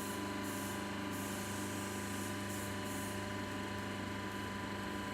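Vertical baler's hydraulic power unit running with a steady motor hum, with several hissing bursts about half a second to three seconds in.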